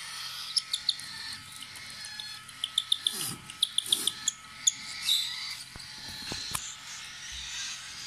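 Cockatiel chick's begging call: short, high squeaky chirps in quick runs as it takes hand-rearing formula from a spoon. A few sharp knocks follow a little after the middle.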